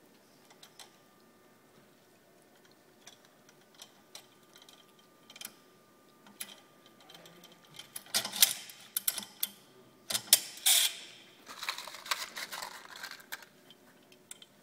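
Hand tool working a freshly drilled hole in a roller ski's metal frame clamped in a vise: a few light clicks at first, then from about halfway several loud bursts of rasping metal-on-metal.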